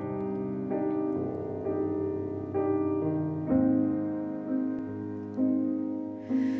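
Grand piano playing a slow ballad introduction. A chord is struck about once a second, and each one is left to ring and fade.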